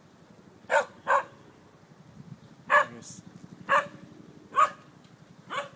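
A dog barking: a series of about six short barks at irregular intervals, the first two close together.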